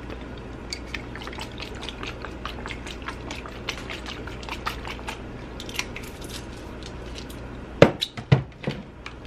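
Red wine vinegar pouring from a bottle into a bowl of chopped salad: a steady trickle with small ticks, then a few sharp knocks near the end.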